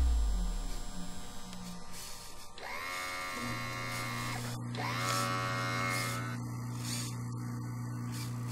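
Electronic watch-cleaning machine starting up: two rising electronic tones, each levelling off, about three and five seconds in, then a steady low electrical hum.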